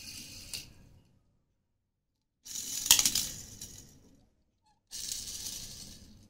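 Die-cast Hot Wheels toy cars pushed off by hand and rolling across a hard tiled floor, their small wheels rattling. One run fades out at the start, and two more start suddenly about two and a half and five seconds in, each dying away over a second or so. A sharp click comes early in the second run.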